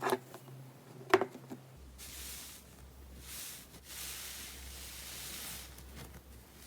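Slime being handled and squished: two sharp pops about a second apart, then a steady hissing rustle.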